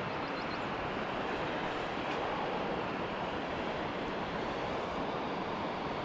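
Steady rushing of running river water, an even hiss with no change in level.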